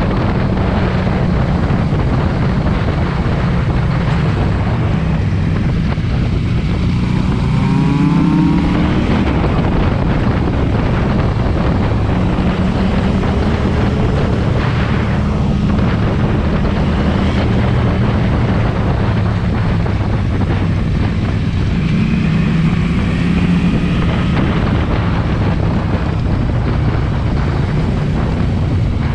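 KTM 790 Duke's parallel-twin engine running through an SC-Project exhaust while riding, the revs rising and falling as it pulls through the gears. Wind rushes over the microphone throughout.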